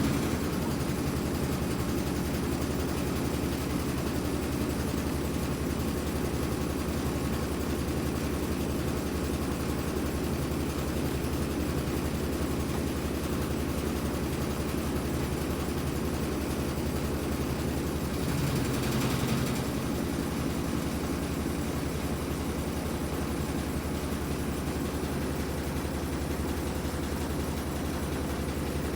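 Whirlpool top-loading washing machine running steadily through its drain and spin cycle: a low, even motor hum, with one brief louder swell about two-thirds of the way through.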